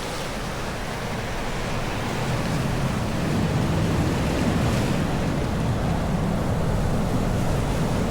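Ocean surf washing onto the shore, a steady rush that swells a little a few seconds in.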